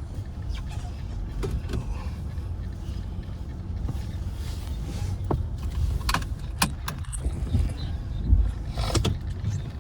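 Car interior noise while driving: a steady low road and engine rumble, with a few sharp clicks or knocks about five to nine seconds in.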